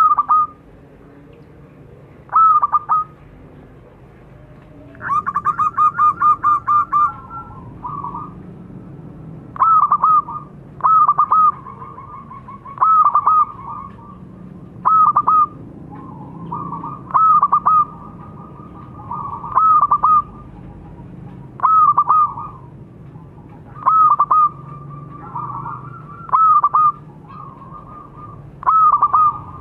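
Zebra dove (perkutut) cooing: a short call repeated about every two seconds. About five seconds in there is a fast run of about ten rapid notes, and softer cooing fills some of the gaps.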